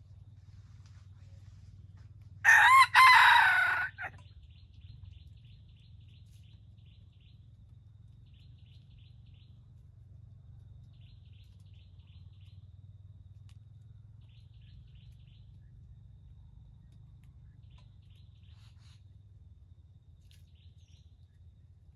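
A jungle rooster (red junglefowl) crows once, loud, about two and a half seconds in. Faint high chirps follow in short rapid runs.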